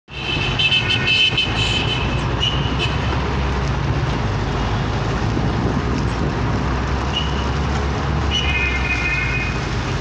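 Car driving through city traffic: a steady low rumble of engine and road noise, with horns tooting several times, the longest for about a second early on and again about eight to nine seconds in.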